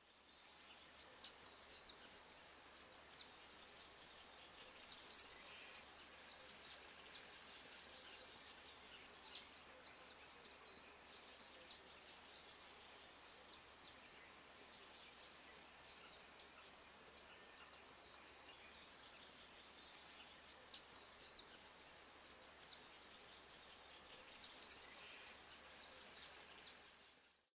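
Faint outdoor ambience of a steady, high-pitched insect chorus with occasional short bird chirps.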